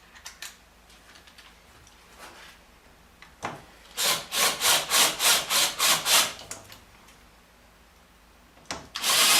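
Power drill drilling out the punched-in dimples that hold a window frame together, run in about eight short bursts in quick succession, then a longer, louder run near the end.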